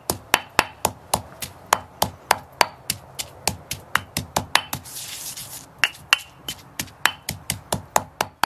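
Stone pestle pounding herbs, chilli and garlic in a stone mortar: sharp, even knocks about three a second, with a brief scraping sound about halfway through.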